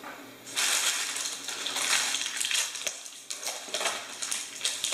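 Clear plastic takeout container lids crackling and rustling as they are pried open and handled, a dense run of crinkles and clicks that starts about half a second in.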